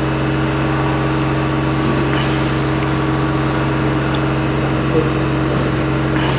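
Steady low electrical hum with background hiss from the public-address sound system, carried by the open microphone, with a faint click about five seconds in.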